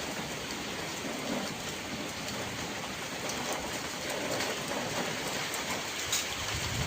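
Steady rain shower falling, an even hiss with a few sharper drop ticks.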